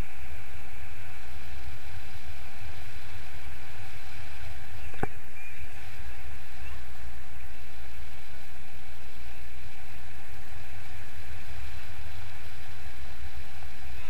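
Steady wind rushing over the camera microphone in flight under a tandem paraglider, a constant low rumble with a faint whistle. A single sharp click about five seconds in.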